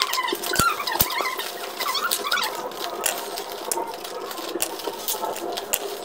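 Scissors cutting open a plastic mailer bag and taped cardboard packaging: a run of sharp snips and crackles, with short squeaks from the plastic in the first couple of seconds.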